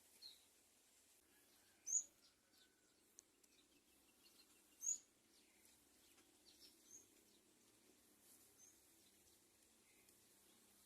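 A bird chirping: a few short, high chirps spread over several seconds, the two loudest about two and five seconds in, with fainter ones between.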